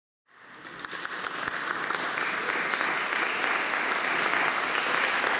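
Audience applauding. The applause fades in just after the start and swells over the first couple of seconds, then holds steady.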